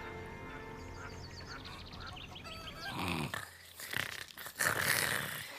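Soft background music fading away, then a few short cartoon bird calls, quacking and honking in character.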